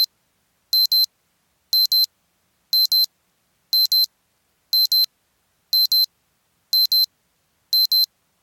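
Digital alarm-clock beeping from a countdown timer that has run out: high-pitched double beeps, beep-beep, repeating about once a second.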